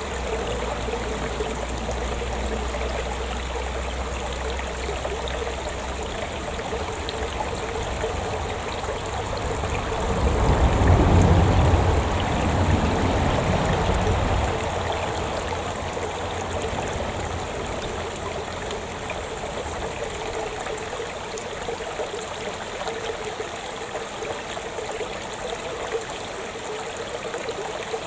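Small stream running and trickling steadily. A low rumble comes up about ten seconds in and dies away some four seconds later.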